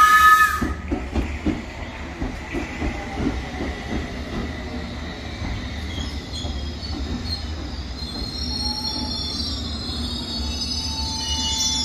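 London Underground S7 Stock train pulling into the platform and braking to a stop: a two-tone horn note ends at the start, then the wheels click over the rail joints, slowing, under a steady rumble, and high-pitched wheel and brake squeal builds near the end.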